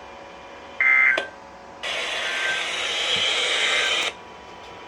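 A weather radio plays a short, loud burst of EAS digital data tones about a second in, the end-of-message code that closes the flash flood warning. About two seconds later comes a steady static hiss lasting about two seconds, which cuts off suddenly.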